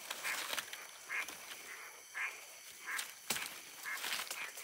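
A caught squirrel giving short, nasal distress calls, one every half second to a second, while dry leaf litter rustles as it is pinned by hand. A sharp click sounds about three seconds in.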